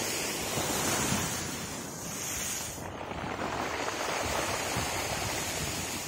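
Sea waves breaking against a concrete seawall and washing over a pebble beach: a steady surf rush that swells and eases twice. Wind rumbles on the microphone underneath.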